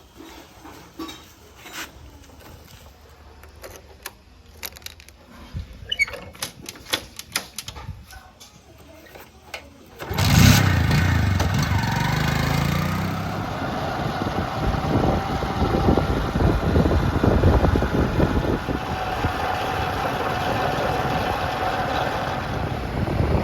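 Quiet at first, with scattered light clicks and knocks. About ten seconds in a heavy diesel engine comes in suddenly and loudly, its pitch rising for a couple of seconds, then runs on steadily.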